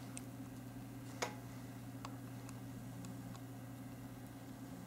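Quiet room tone with a steady low hum, broken by one sharp click about a second in and a few fainter ticks after it.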